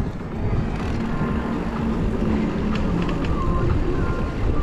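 Steady low rumble of a bicycle rolling over paving stones, the tyre noise mixed with wind on the microphone.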